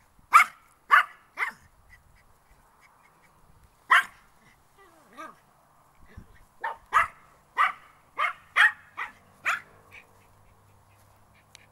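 Pomeranian barking in short, sharp yaps: three quick barks, a single one a few seconds later, then a run of about seven barks in quick succession.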